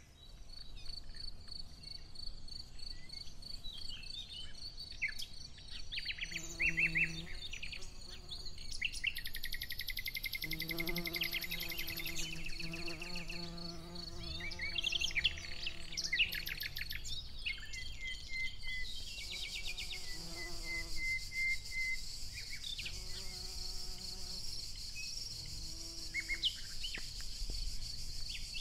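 Flying insects buzzing near the microphone in passes of a few seconds, with birds chirping and a steady high-pitched tone underneath.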